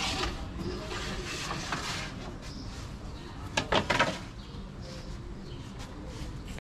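Kitchen clatter over a steady background: a quick cluster of knocks about three and a half seconds in, as from a wooden oven peel or metal trays being handled at the oven.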